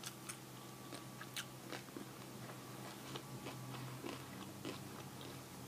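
Faint close-up chewing and biting of food, heard as scattered small clicks and crunches at an uneven pace over a faint steady low hum.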